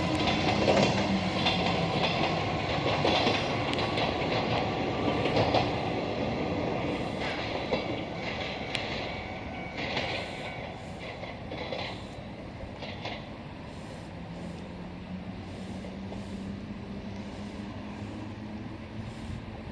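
Mizuma Railway 1000-series electric train pulling away, its wheels clicking over the rail joints. It fades steadily as it moves off.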